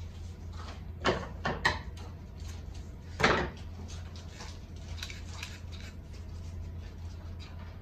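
Handling noises of craft work at a wooden table: a few sharp knocks and clatters, the loudest about three seconds in, as tools and materials are put down and picked up, with light ticking and rustling between them. A steady low hum runs underneath.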